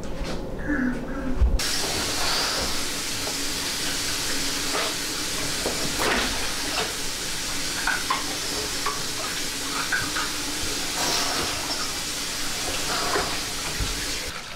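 Water running steadily, an even hiss that starts about a second and a half in and goes on with a few light clicks.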